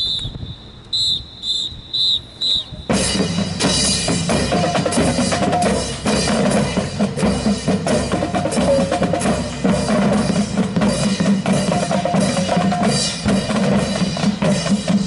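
A drum major's whistle gives the tail of a long blast and then four short blasts in even time, counting the band in. About three seconds in, the marching band strikes up loudly with drums, sousaphones and brass, playing a steady march beat.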